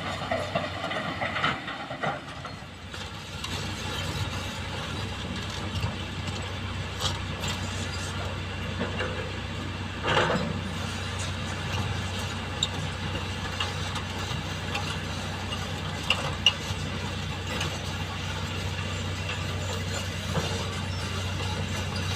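Hydraulic excavator's diesel engine running steadily under load, with scattered clanks and knocks of the bucket and rock, and a louder scraping rush about ten seconds in as material is moved.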